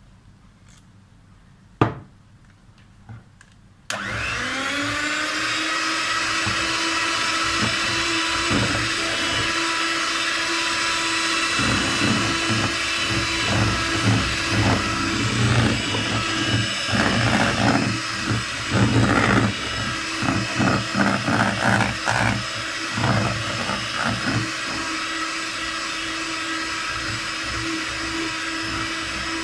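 Electric hand mixer switched on about four seconds in, its motor whining up to speed and then running steadily as the beaters whip a runny cream mixture, with the beaters knocking and clattering against the bowl. A sharp knock sounds once shortly before it starts.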